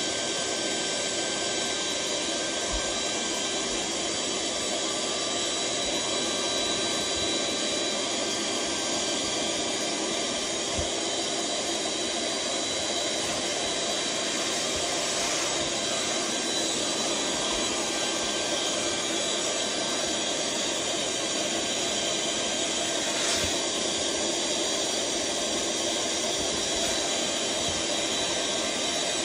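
Electric blower running steadily, pushing air through a hose into a large vinyl inflatable: a constant rush of air with a steady whine.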